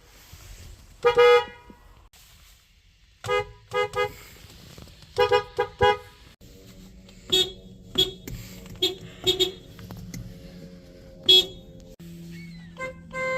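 Car horns honking: one long blast about a second in, then groups of two or three short toots. From about halfway a different horn sounds a series of short, higher beeps over steady tones, and near the end another horn comes in with a steady tone and quick pulses.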